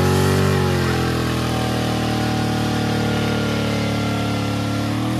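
Old sedan's engine revving hard while its rear wheel spins in mud and the car stays stuck. The revs are high at first, drop about a second in and hold steady, then start climbing again at the very end.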